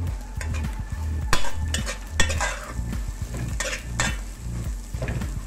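A metal spoon stirring and scraping egg and grated carrot frying in oil in a pot, with a sizzle under it. The spoon clicks and scrapes against the pot many times.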